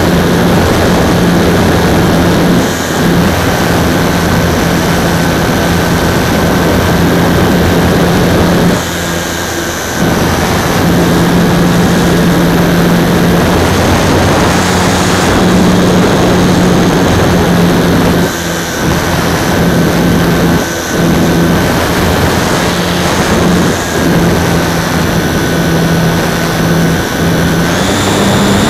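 Super Cub model aircraft's motor and propeller running steadily, heard from a camera mounted on the airframe, with air rushing past. The throttle is eased back briefly a few times, the longest about a third of the way through.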